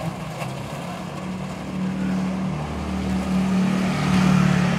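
Small motor scooter engine approaching and passing close by, its steady hum growing louder toward a peak near the end.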